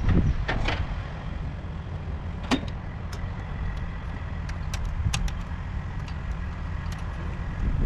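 Scattered sharp clicks and clacks of hardware being handled, most likely the welding surge protector's clamps going onto the excavator's battery, over a steady low rumble.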